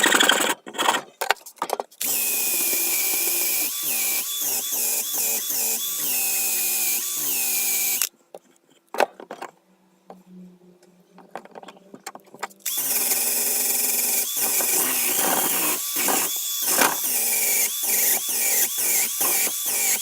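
Electric power tool running under load, its motor note dipping briefly again and again as it bites into the work. It stops for about four seconds in the middle and then runs again.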